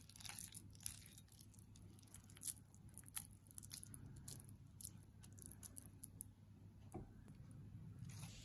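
Faint wet squishing and soft scattered clicks of hands pressing and rolling a mashed raw jackfruit kofta mixture into balls, over a steady low hum.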